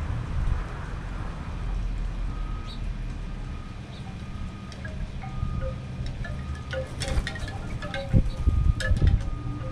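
Wind chimes tinkling, scattered single notes at a few fixed pitches, then a busier cluster of strikes about seven seconds in, over a steady low rumble of wind on the microphone.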